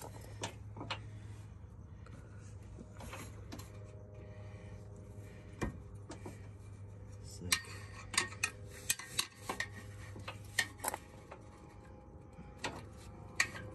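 Socket ratchet working a bolt on a car's exhaust muffler mount: irregular sharp metallic clicks and clinks, thickest from about halfway through, over a low steady hum.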